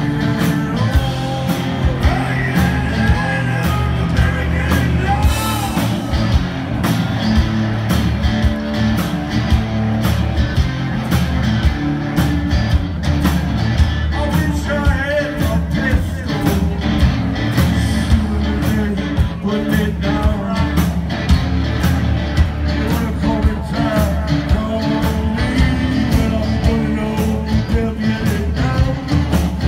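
A live rock band playing loudly: drums, guitar and a singing voice.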